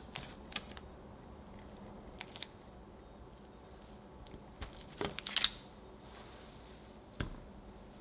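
A chef's knife cutting a block of cold butter into cubes on a wooden cutting board, with soft cuts and light knocks of the blade on the board. The densest clicking and scraping comes about five seconds in, and one sharper knock comes near the end.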